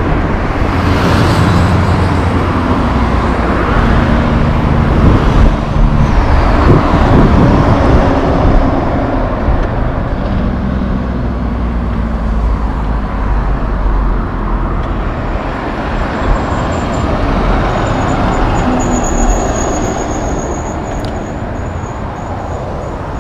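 Road traffic passing close by: cars and heavy diesel trucks with their tyre noise, the engine hum strongest in the first eight seconds and easing off after. A faint high whine comes through near the end.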